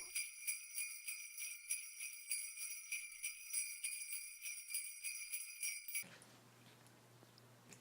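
Small bell jingling with quick, irregular shakes for about six seconds, then stopping abruptly, leaving a faint low hum.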